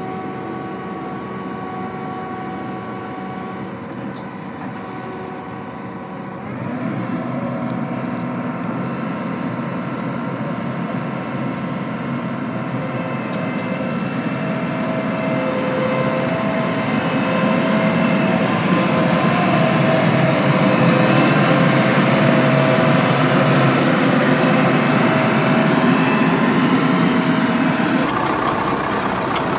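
John Deere combine harvester running in the field, its engine and machinery a steady drone with several held tones. It gets louder about six seconds in and keeps building as the machine comes close. Near the end it gives way to the engine of an old Zetor tractor, heard from the driver's seat.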